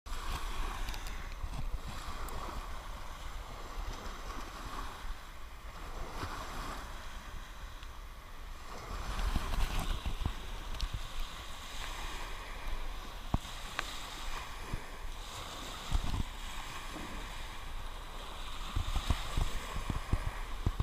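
Small waves washing up on a sandy beach, with wind rumbling on the microphone.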